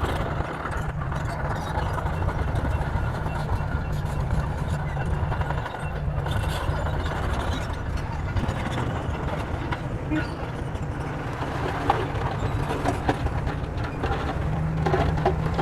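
Heavy diesel engine of a bulldozer running steadily, with a deep, continuous drone.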